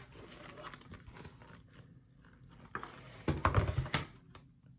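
Pages of a book being handled and turned, with a louder burst of rustling about three seconds in.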